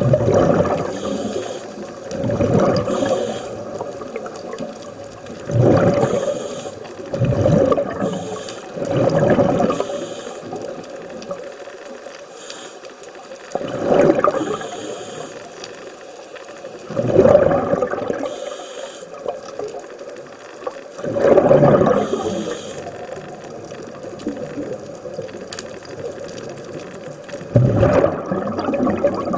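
Scuba diver breathing through a regulator underwater: a gurgling burst of exhaled bubbles every two to four seconds, with a brief thin hiss of inhalation between them.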